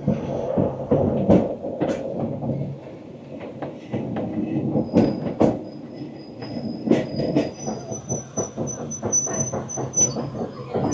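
Narrow-gauge train running, with repeated sharp clicks from the wheels over the rail joints and a high wheel-flange squeal that comes in about five seconds in and holds over the last few seconds.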